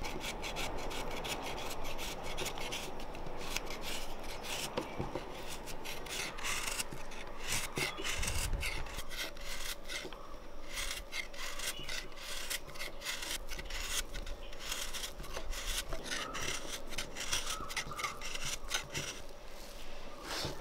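Large knife blade scraping flakes off a ball of jaggery into a wooden bowl: a quick, continuous run of short scraping strokes.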